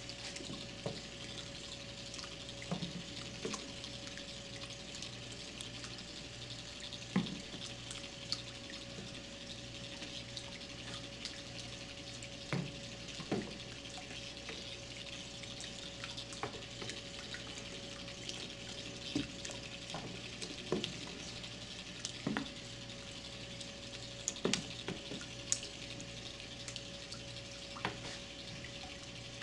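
Motorized weasel balls churning in water: steady sloshing with sharp splashes or plops every second or two, over a steady hum.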